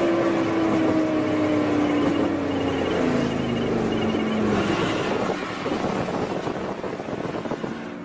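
BMW E60 M5's V10 engine heard from inside the cabin at highway speed, its pitch falling steadily over the first four seconds or so as the revs drop, over road and wind noise.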